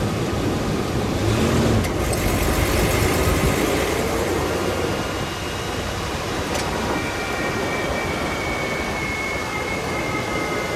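Ford Explorer moving over uneven ground, with steady engine and road rumble. Two brief sharp clicks stand out, one about two seconds in and one past the middle, and a faint thin whine runs through the second half.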